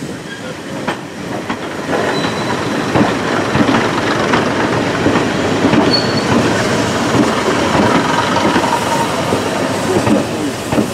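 Vintage diesel multiple unit passing close by, growing louder over the first two seconds: wheels clacking over rail joints with a steady rattle of running gear, and a few brief thin squeals from the wheels.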